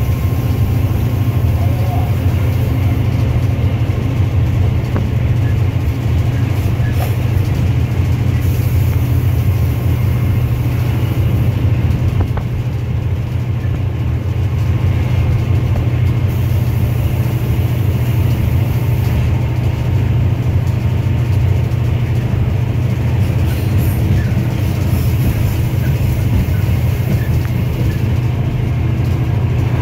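The EMD 8-645 two-stroke diesel engine of an EMD GL18B locomotive running with a steady low drone, heard from inside the cab.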